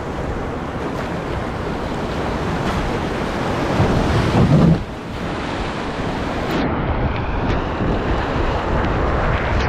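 Rushing whitewater around a canoe running rapids, a steady hiss of moving water with wind on the microphone. A short low rumble comes about four seconds in.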